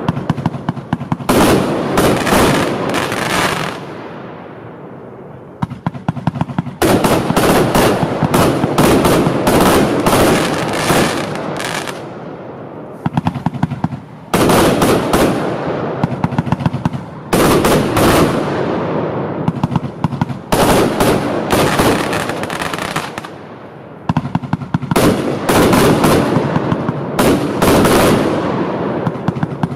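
A compound firework battery firing volleys of rapid, sharp bangs, about five volleys, with the sound dying down briefly between them.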